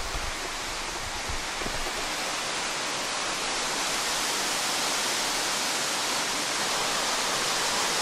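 Steady rush of a waterfall: an even hiss of falling water that grows gradually louder.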